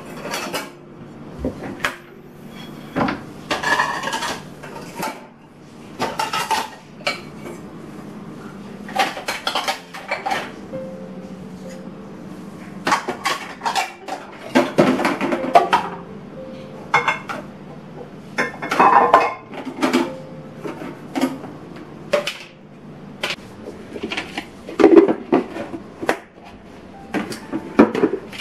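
Dishes and cutlery clinking and clattering as they are handled and set down, in many separate irregular knocks.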